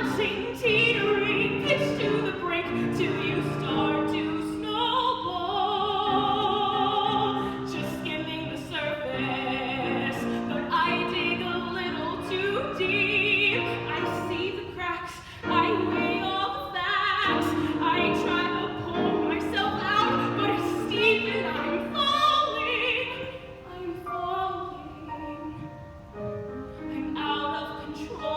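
A woman singing a musical-theatre song in a trained classical voice. She uses wide vibrato and holds long notes, over accompaniment.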